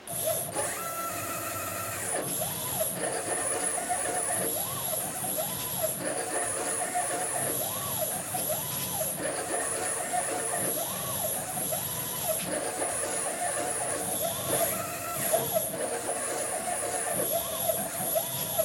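Stepper motors driving the axes of a CNC-converted PM-25MV benchtop mill running a test program, whining in tones that rise and fall again and again as the axes speed up and slow down between moves. A steady high whine sits underneath.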